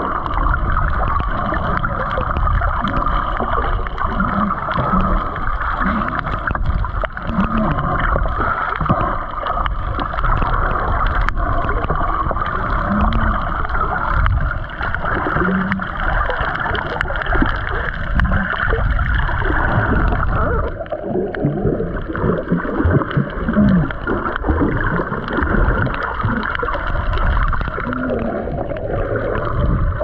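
Underwater sound picked up by a camera beneath the sea: a steady hiss and low rumble with gurgling water movement, and short low surges every second or two.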